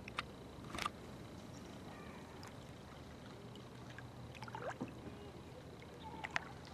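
Quiet river ambience with a few light knocks and small water sounds from a kayak and its paddle, plus a short falling tone a little past halfway.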